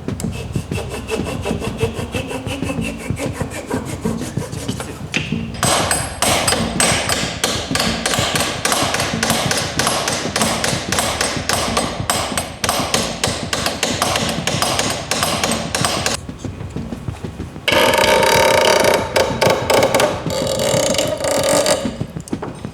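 Hammer blows in quick succession, several a second, for about ten seconds, then a louder scraping sound near the end.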